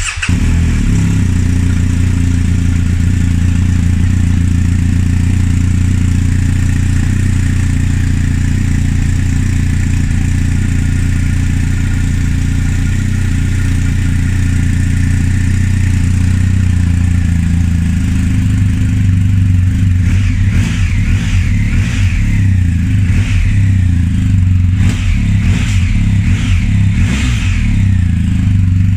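BMW R1250GS Adventure's boxer-twin engine, heard through its exhaust, starting and idling steadily, then blipped several times in the last third, each rev rising and falling.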